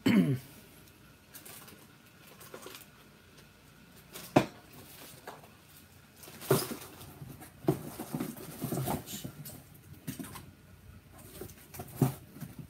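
Scattered light clicks, taps and knocks at irregular intervals, the sharpest about four seconds in.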